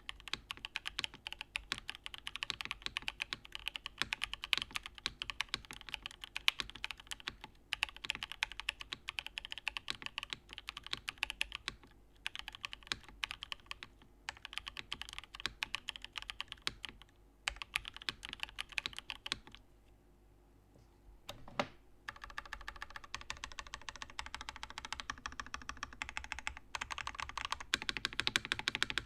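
Pluto by Saab custom mechanical keyboard, top-mounted with an aluminium plate, no foam and Vertex v1 switches, being typed on quickly and steadily. The typing stops for about two seconds a little past the middle, with one lone keystroke, then picks up again.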